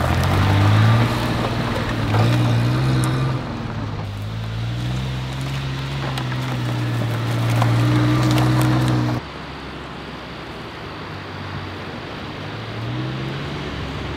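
Suzuki kei mini truck driving off-road over a dirt track, its small engine running and rising and falling in pitch as it pulls along. About nine seconds in the engine sound drops suddenly to a quieter, more distant note, which climbs in pitch again near the end.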